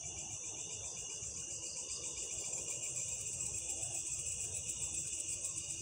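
Steady chorus of crickets and other insects, a continuous high, rapidly pulsing trill at two pitches.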